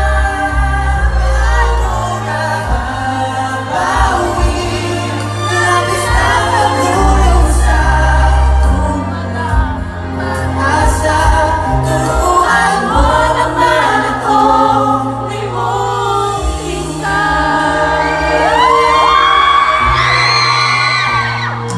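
Male vocal group singing live into microphones over a backing track with a deep bass line, voices taking turns on the melody, with a high held vocal line near the end.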